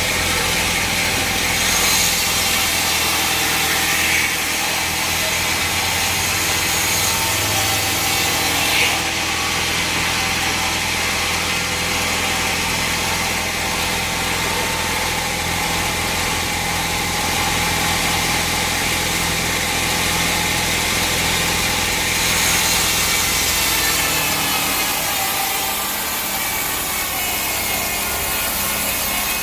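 Sawmill saw cutting through timber, driven by an engine that runs steadily throughout. The low engine note thins out about three-quarters of the way through.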